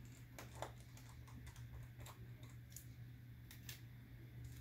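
Faint, irregular small clicks of a precision screwdriver and tiny metal screws being worked into a laptop palm rest's metal plate, over a low steady hum.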